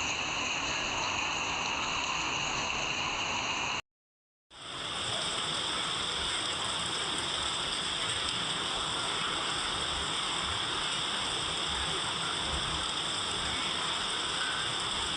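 Steady rain, an even hiss. It drops out to dead silence for about half a second near four seconds in, then fades back up.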